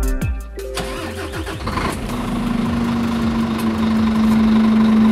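A Scania R440's 12.7-litre six-cylinder diesel engine being started, catching in about the first two seconds and then running steadily.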